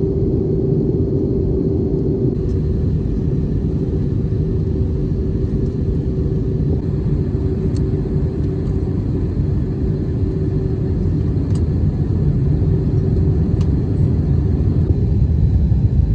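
Cabin noise of an Airbus A320 airliner in flight: a steady rumble of the engines and the air rushing past, with a steady hum.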